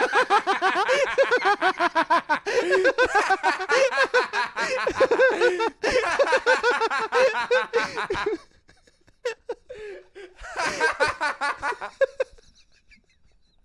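Men laughing hard for about eight seconds, then a quieter pause and a shorter second burst of laughter.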